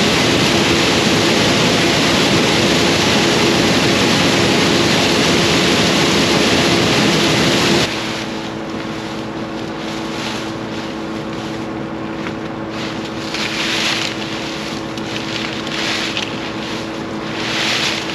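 Combine harvester running with a steady hum. About eight seconds in, the noise drops abruptly to a quieter steady hum with several brief rushes of hiss.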